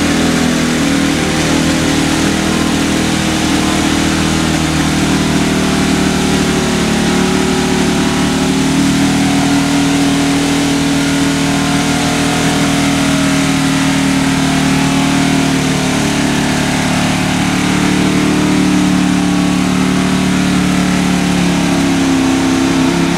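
Square-body Chevrolet pickup's engine held at high revs as the truck bogs down in deep mud. The engine note is steady and rises slightly about nine seconds in.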